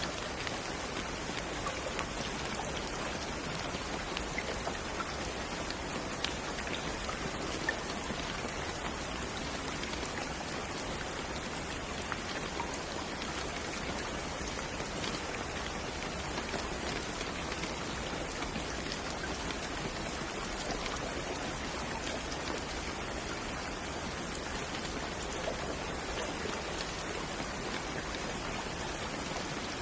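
Steady rain falling on a surface, an even hiss with many small scattered drop ticks.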